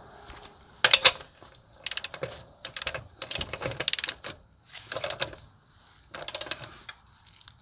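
A wrench tightening a wheel lug nut: about five short runs of rapid metallic clicking, each under a second, with pauses between.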